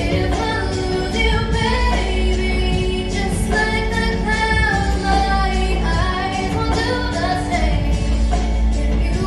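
Young woman singing a pop ballad solo over a backing track with a steady bass line, holding and bending long sung notes.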